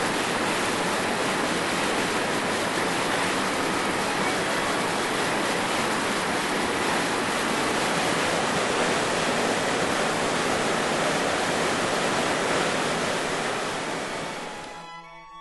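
Waterfall: a steady rush of white water pouring over rock, fading out near the end as violin music comes in.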